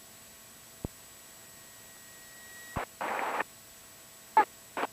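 Low hiss of a cockpit radio line, with a couple of sharp clicks and a short burst of static about three seconds in.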